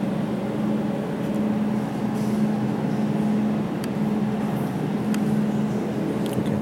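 Jewelry laser welding machine switched on and running with a steady hum, marked by a strong low tone. There are a few light clicks about four and five seconds in and near the end.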